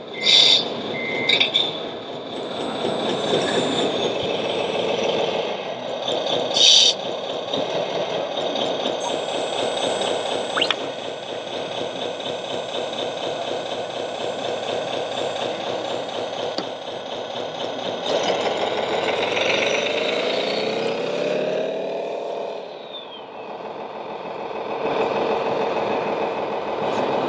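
Radio-controlled Scania 8x8 tipper truck with a sound module playing a diesel engine running, with three short hisses in the first several seconds. The engine revs rise and fall about two thirds of the way through.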